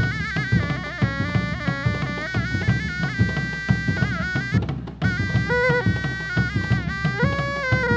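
Sundanese reog ensemble playing: hand-beaten dogdog drums keep a busy rhythm under a reedy wind instrument playing a wavering, ornamented melody with long held notes. The melody breaks off briefly just before the middle, then comes back.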